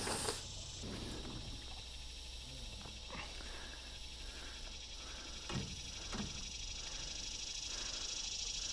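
Steady high-pitched buzzing of insects from the swamp, with a few dull knocks: the loudest right at the start and two faint ones a little past halfway.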